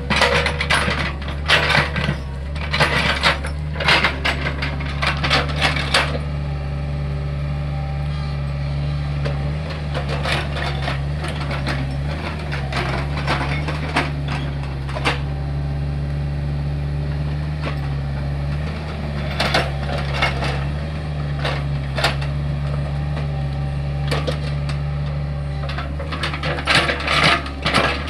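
Hitachi excavator's diesel engine running steadily, with bouts of clattering knocks as the bucket works hard, dry soil. The knocking comes in the first few seconds and again through the last third.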